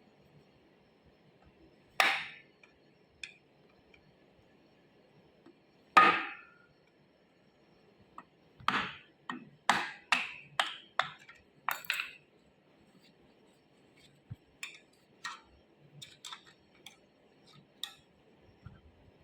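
Metal tools knocking and clinking against the metal parts of an electric motor: two single ringing knocks, then a quick run of about seven knocks, then lighter clinks near the end.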